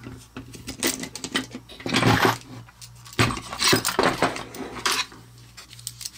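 Small screws and parts clicking and clattering as 6-32 machine screws are fitted to the router plate parts, with louder rattling about two seconds in and again between three and four seconds.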